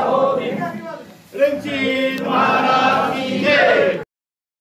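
A group of voices chanting together on long, drawn-out notes in two phrases, with a short break a little over a second in; the sound stops abruptly about four seconds in.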